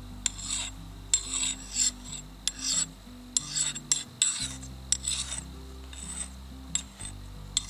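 Steel file scraping across an axe's bit in a series of separate strokes, roughly one a second, sharpening the edge by hand.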